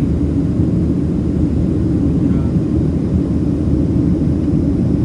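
Boeing 737-700 cabin noise: the CFM56-7B jet engines and the rush of air past the fuselage, a steady low rumble with no change in pitch or level.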